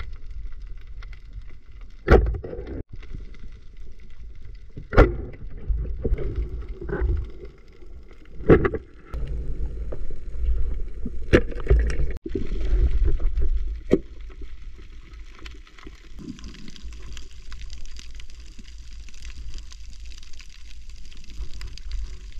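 Underwater sound picked up by a diver's camera: a steady low rumble with a faint hiss, broken by sharp knocks about every three seconds.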